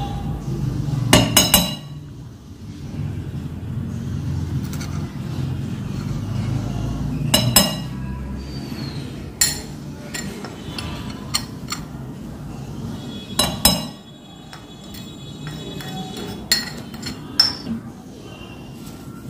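Several sharp clinks of a spoon against a ceramic bowl as spice powders are added, some in quick clusters, over a steady low background rumble.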